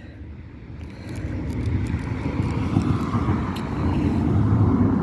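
A low, noisy vehicle rumble that builds up from about a second in and holds, with a few faint clicks over it.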